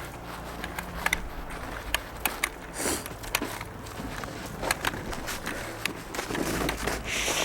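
Footsteps moving through brush: many scattered sharp snaps and cracks, with brushing swishes about three seconds in and near the end.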